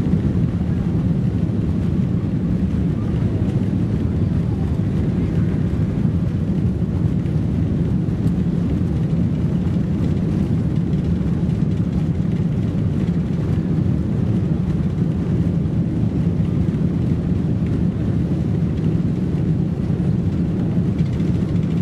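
Steady cabin rumble of a Boeing 747-400 taxiing on the ground, its Rolls-Royce RB211 engines running at low power, heard from inside the passenger cabin.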